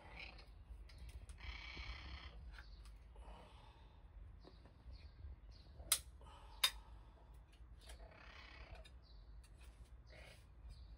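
A grey domestic cat meowing faintly now and then, with two sharp clicks close together about six seconds in.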